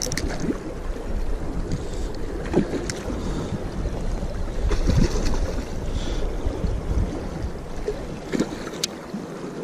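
Wind noise on the microphone over moving creek water, with a few short splashes from a hooked trout thrashing at the surface. The low wind rumble drops away near the end.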